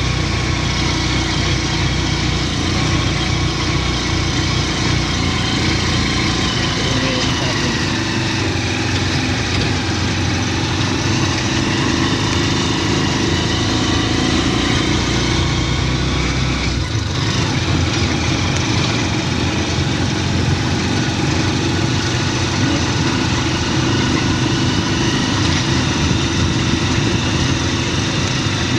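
A vehicle engine running steadily with a constant hum; its deepest rumble drops away about two-thirds of the way through.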